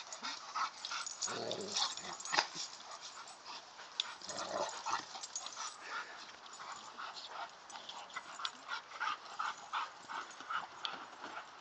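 Dogs scuffling in rough play, with short yips and whimpers among many scattered scuffling clicks.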